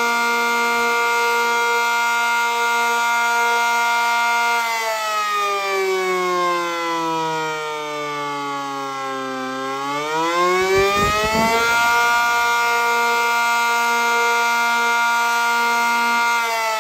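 ACA Cyclone 125 outdoor warning siren sounding a steady tone. About five seconds in its pitch falls slowly for roughly five seconds, then rises back to the steady tone, and near the end it begins to fall again.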